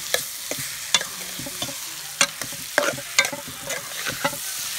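Curried jackfruit sizzling as it fries in an aluminium pot, with a spoon stirring through it and clicking and scraping against the pot several times.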